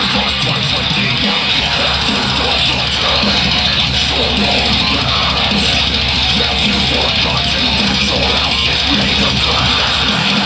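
Metalcore song playing: fast, heavily distorted electric guitars with pounding bass and drums at a steady loud level.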